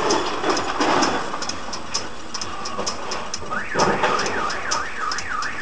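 A car alarm starts about three and a half seconds in, a fast, repeating rising-and-falling wail, over steady road and engine noise with many light ticks.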